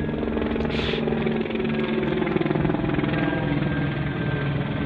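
A motor engine running steadily, a constant hum of several low tones.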